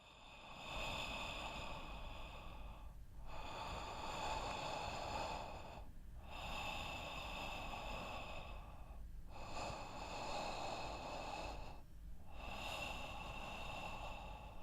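Slow, heavy, noisy breathing of a person, one long breath about every three seconds with a short pause between.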